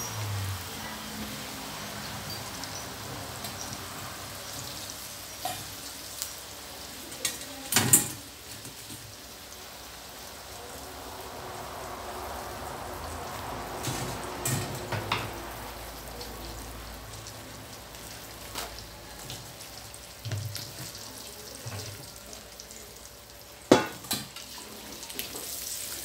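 Wonton dumplings deep-frying in hot oil in a steel wok, a steady sizzle. A few sharp knocks cut through it, the loudest about eight seconds in and another near the end.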